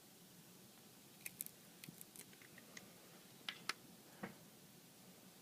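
Faint, scattered sharp clicks and ticks of small repair tools handling the iPad 3's small parts, about a dozen over a few seconds, the loudest near the end.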